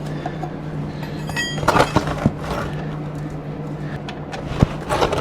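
Metal clinks and knocks of tools and parts being handled during an oil change, with a short ringing clink about a second in, over a steady low hum.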